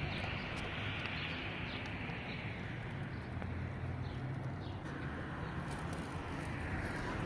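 Faint bird chirps, a few short falling notes, over a steady low hum of outdoor street ambience.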